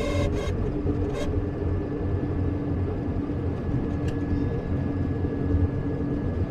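Fiat 126p's air-cooled two-cylinder engine and road noise, a steady rumble heard on the move, with a faint steady whine above it and a few light clicks.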